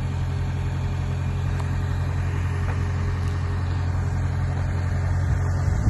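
Cat hydraulic excavator's diesel engine running steadily with a low hum, with a brief knock at the very end.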